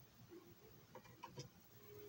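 Near silence: room tone with a few faint light clicks about a second in.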